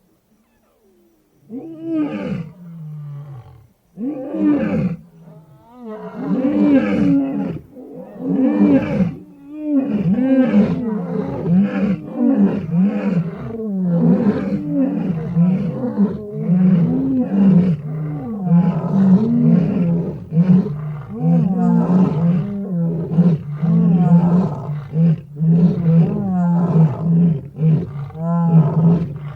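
Big cat roaring in a long series of repeated, loud roars.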